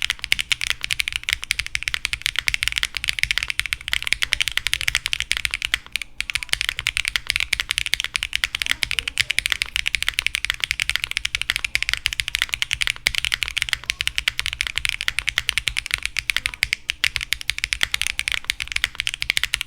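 Fast, continuous typing on a custom mechanical keyboard: a Qwertykeys Neo65 with KBDfans Roller linear switches, GMK Birch keycaps and a carbon fibre plate, giving a dense stream of keystroke clacks. The typing breaks off briefly about six seconds in.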